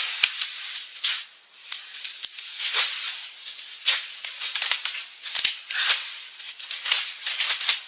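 Dry leaves and twigs rustling and crackling in short, irregular bursts, a few every second.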